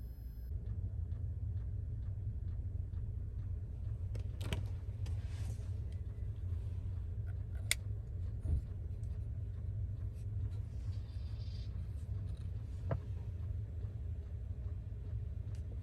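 Kerosene FF air heater in its start-up run, its fan and burner giving a steady low rumble that comes up about half a second in, with a few sharp clicks scattered through.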